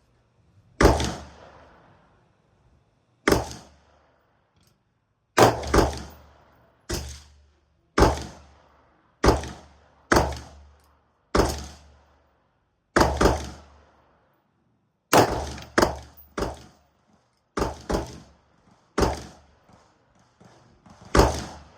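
Semi-automatic AR-15 rifle with a 16-inch barrel firing 5.56 rounds: roughly twenty sharp shots at an uneven pace, some in quick pairs, each followed by a short ringing tail.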